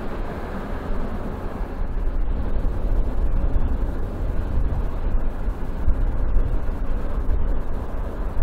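Inland motor tanker passing on the river, its diesel engine a low, steady rumble that grows a little louder from about two seconds in.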